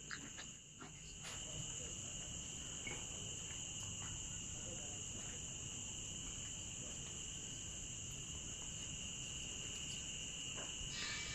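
Steady, high-pitched chorus of insects in the surrounding fields, holding two unbroken pitches, over a low rumble.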